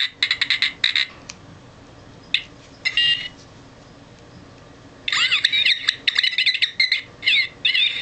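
R2-D2 action figure's electronic sound chip playing R2-D2 beeps and boops. A quick run of beeps comes first, then two short bursts, a pause, and from about five seconds in a longer run of warbling whistles that slide up and down in pitch.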